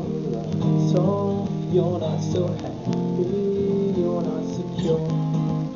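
Acoustic guitar strumming chords, the instrumental lead-in to a song.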